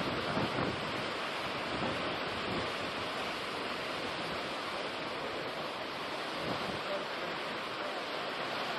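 Surf breaking and washing over a rocky shore, a steady rushing noise, with wind buffeting the microphone now and then, most in the first second.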